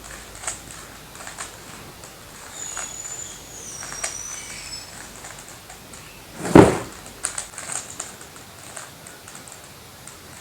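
Rubik's cube being shuffled by hand: scattered plastic clicks of its layers turning, with one much louder thump about six and a half seconds in.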